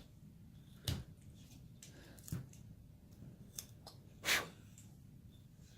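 Carving knife slicing shavings from a basswood figure: a few short, sharp scraping cuts, the longest and loudest about four seconds in.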